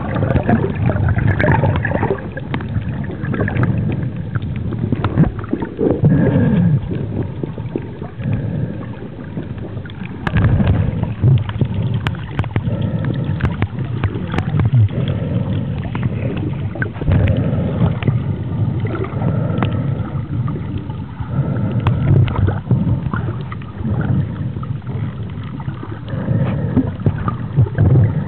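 Underwater noise picked up by a camera held below the surface: a dense rush and gurgle of moving water, with many scattered sharp clicks and knocks.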